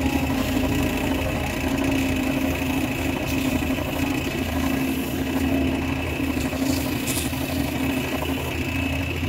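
Small wood lathe running at a steady speed, its motor giving an even hum with a steady higher whine and no change in speed.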